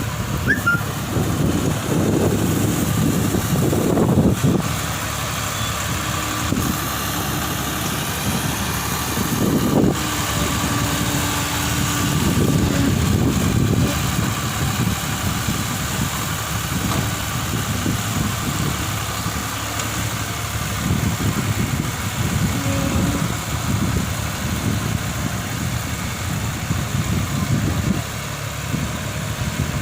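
Tractor engine running steadily, with small swells in level.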